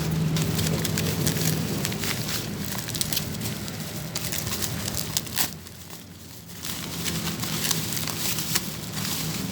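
Packaging crinkling and rustling with many small clicks as a package is unwrapped and its contents handled, with a brief lull about six seconds in.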